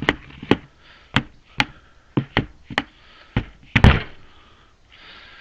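A string of hard, irregular knocks and taps from work on a Case 580 backhoe's outrigger hydraulic ram: about nine or ten separate hits, the loudest a double knock near four seconds in.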